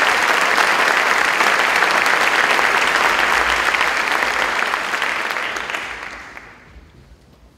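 Concert-hall audience applauding to welcome the conductor to the podium. The clapping is loud and dense, then dies away in the last couple of seconds.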